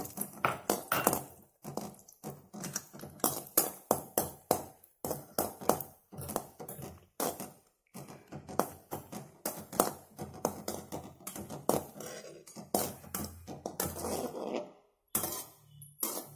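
A long metal spoon scraping and tapping against an aluminium kadai while stirring cashews frying in ghee: a quick, irregular run of short strokes, a few each second, with brief pauses between.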